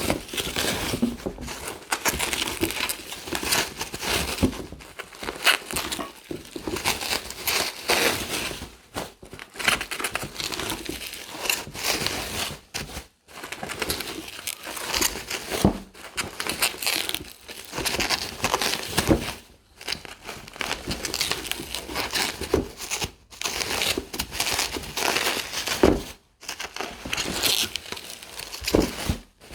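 Packing material around a comic slab being handled and unwrapped by hand: irregular crinkling and rustling in short bursts with brief pauses.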